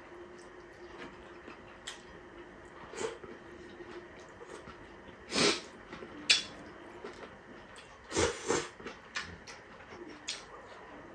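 Close-miked eating sounds of a man eating rice and noodle salad by hand: chewing and lip smacking, with a few louder, sharp mouth sounds about five to nine seconds in.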